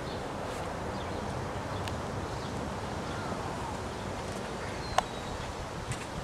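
Outdoor ambience: a steady background hiss with faint bird chirps, and a few sharp ticks, the loudest a single click about five seconds in.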